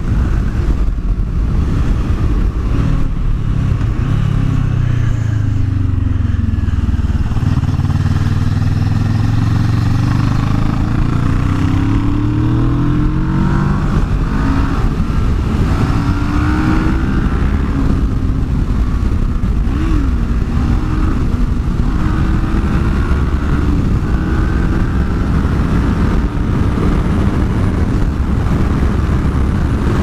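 Yamaha FZ-09's 847 cc inline three-cylinder engine under way on the road, with strong wind rush. The engine note drops as the bike slows a few seconds in, climbs again as it pulls away, then rises and falls with the throttle.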